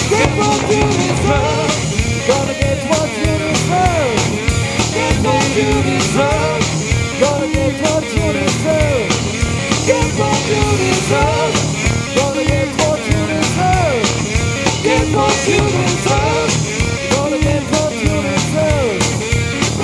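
Live rock band playing an instrumental passage: an electric guitar lead with bending, gliding notes over bass guitar and a drum kit.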